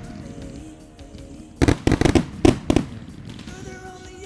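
Fireworks shells bursting in a rapid cluster of loud bangs about a second and a half in, over pyromusical soundtrack music.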